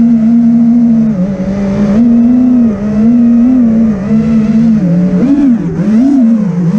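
Brushless motors and props of a 5-inch FPV quadcopter (Brother Hobby Returner R6 2306 2450 kV motors) whining, heard from the onboard camera. The pitch holds fairly steady, then dips and swings up and down about five seconds in as the throttle is worked.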